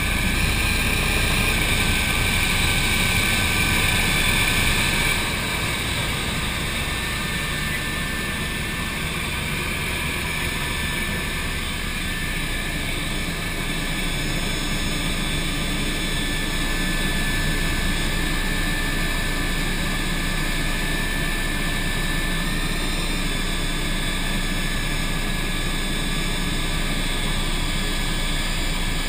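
Eurocopter BO-105 helicopter in flight, heard from inside the cabin: a steady drone of rotor and twin turboshaft engines with a steady high whine, a little louder for the first few seconds.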